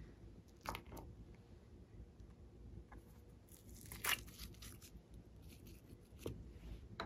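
Thin plastic tub crinkling and crackling as a block of clay is pressed and popped out of it, loudest about four seconds in, with a few light clicks and taps of plastic around it.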